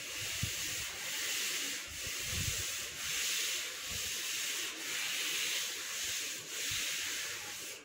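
A duster wiping chalk off a chalkboard in repeated strokes, a scratchy rubbing hiss that swells and fades about once a second.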